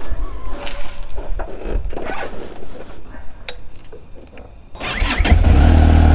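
Clicks and knocks of handling the motorcycle and its camera mount, then about five seconds in the Benelli TRK 502X's parallel-twin engine starts and settles into a steady idle, much louder than the handling noises.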